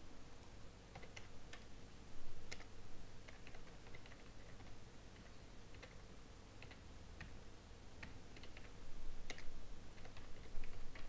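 Computer keyboard keystrokes in short, irregular runs as numbers are typed in, a few keys struck harder than the rest, over a steady low hum.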